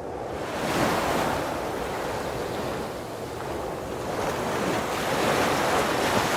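Rushing sea water with wind on the microphone, swelling about a second in and again near the end.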